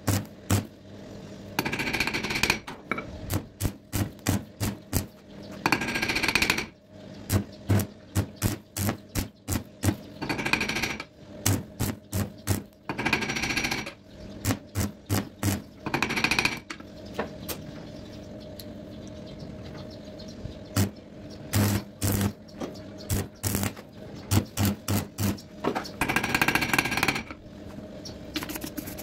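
Stick-welding arc crackling in about six short bursts of a second or so each, built up onto a broken screw stub. Between the bursts come quick, sharp hammer taps chipping slag off the weld.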